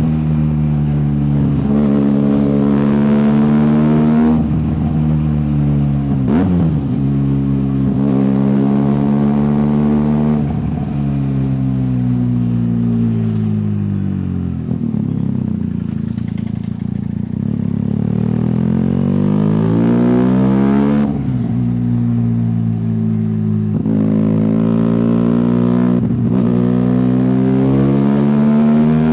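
Benelli TNT 300's parallel-twin engine heard through its exhaust, pulling up through the gears: the pitch climbs and drops suddenly at each upshift, three times in the first ten seconds. Around the middle it eases off and falls in pitch for several seconds, then accelerates again with two more upshifts.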